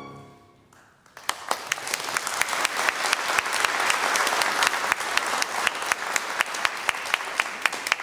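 The last chord of the choir and chamber ensemble dies away, then audience applause breaks out about a second in and keeps going, a dense patter of hand claps with individual sharp claps standing out.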